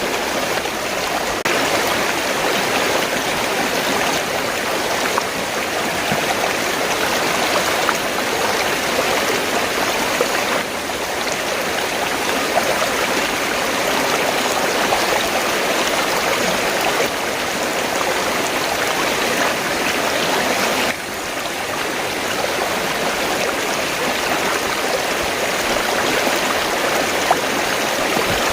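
River water flowing: a steady, even rush with small gurgles, dipping slightly in level twice.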